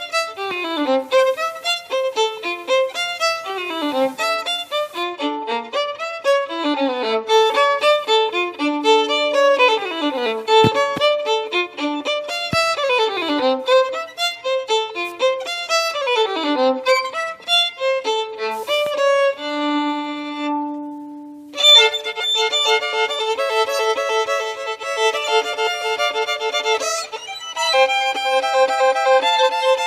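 Solo instrumental music. Quick runs of notes sweep downward again and again, then one long low note is held, and from about 22 seconds in the playing moves to sustained chords of two or more notes at once.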